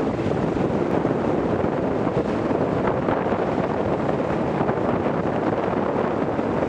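Strong wind of 20-plus mph buffeting the microphone as a steady, loud rushing noise aboard a sailboat under way on choppy water.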